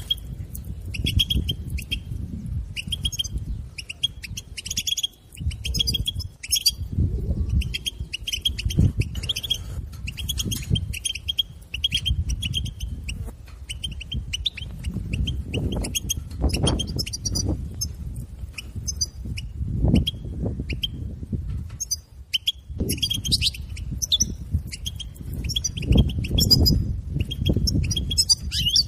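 European goldfinch giving its rapid 'tib-tib' chatter of short, quick call notes in repeated bursts, the kind of call played to stir captive goldfinches to sing. A low rumbling noise swells and fades underneath.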